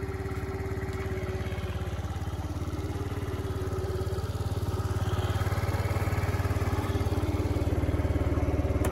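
Kymco Super 8X 50cc scooter engine running steadily, getting somewhat louder from about halfway through.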